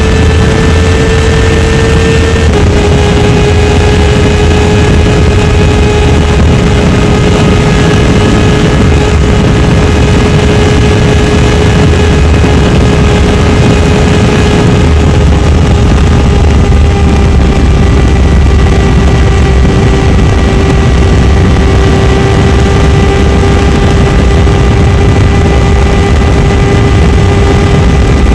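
Suzuki GSX-R600's inline-four engine pulling hard at high revs at over 220 km/h, its note held steady, with heavy wind roar on the microphone. The engine note drops a little a few seconds in, then eases down slowly.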